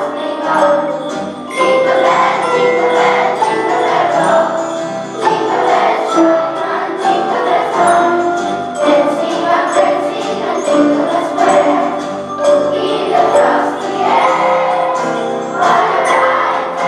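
Children's choir singing a Christmas song to an accompaniment of Orff-style xylophones and metallophones, whose struck bars ring out steadily beneath the voices.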